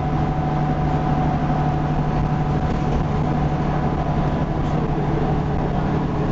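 Leyland Lynx Mk2 bus with a Cummins L10 diesel engine running at a steady pace under way, heard from inside the passenger saloon as one even, unchanging drone.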